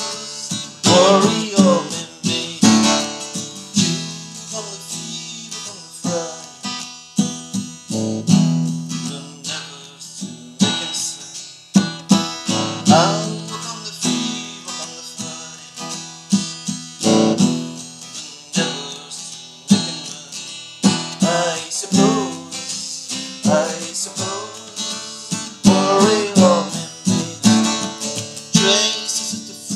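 Plucked string instrument playing a mix of single notes and strums, each note ringing and fading.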